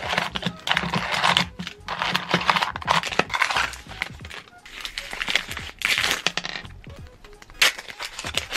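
Small paper wrappers crinkling and tearing as they are unwrapped, in three longer bursts with scattered crackles. Background music plays underneath.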